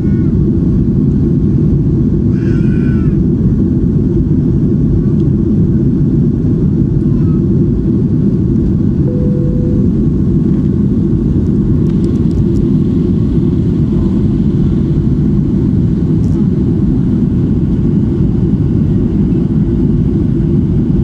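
Steady loud cabin drone of a jet airliner in flight, engine and airflow noise heard through the fuselage beside the wing, with the plane climbing away from the ground.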